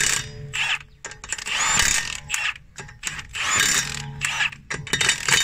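Cordless impact wrench running wheel bolts into a steel wheel in several bursts, two of them about a second long, with shorter bursts near the start and end.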